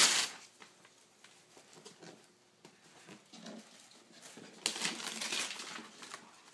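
Christmas wrapping paper being torn and rustled off a large gift box, in two rough bursts: a short one at the start and a longer one of about a second and a half near the end, with faint rustling and small taps between.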